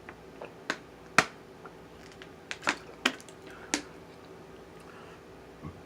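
About six short, sharp clicks or taps in the first four seconds, the loudest about a second in, then only a faint steady hum.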